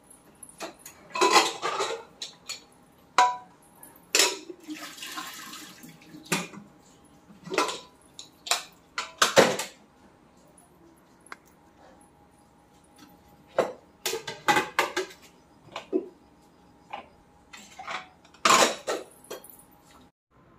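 Aluminium pressure cooker being opened and handled: a series of irregular metal clanks and knocks, some ringing briefly, with a short hiss about five seconds in.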